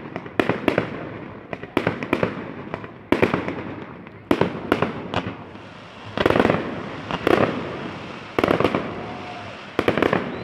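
Fireworks display: an irregular string of sharp bursting bangs, often in quick pairs or threes, a denser cluster a little past halfway, each trailing off in a crackling rumble.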